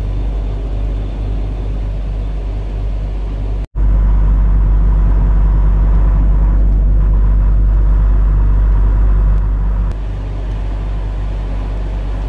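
Semi truck's diesel engine and road noise droning steadily inside the cab at highway speed. The sound cuts out for an instant about four seconds in, then the drone returns louder until about ten seconds in.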